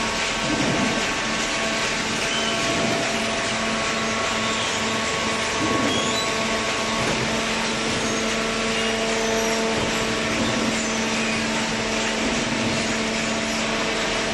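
Semi-automatic horizontal cardboard baler running: a steady machine hum with several constant tones over an even hiss.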